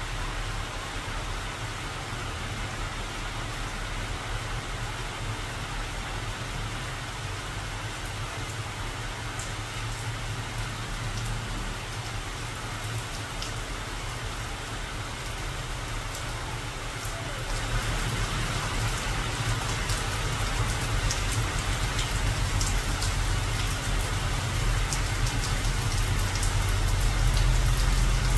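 Steady rain falling on tree foliage, with scattered drip ticks, growing heavier about two thirds of the way through. A low steady rumble runs underneath.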